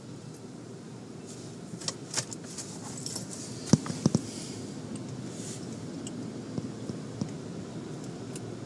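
Automatic tunnel car wash heard from inside a car's cabin: a steady low rumble of machinery and water that slowly grows louder, with a few sharp knocks around the middle and a burst of spray hiss.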